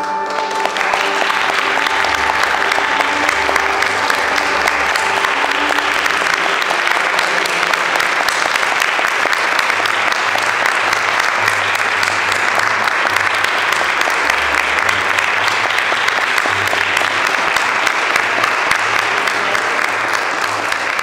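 Audience applauding steadily, a dense clapping that holds through to the end. Over the first few seconds the last held notes of the music are still ringing and fading under the clapping.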